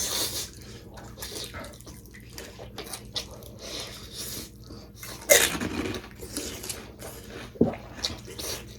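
Close-up eating sounds: crunchy bites and chewing, with two louder sudden crunches about five and a half and seven and a half seconds in.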